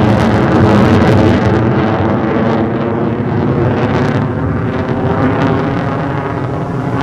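Fighter jet engine noise, a loud, steady roar with many tones and a rough, crackling edge, easing slightly near the end.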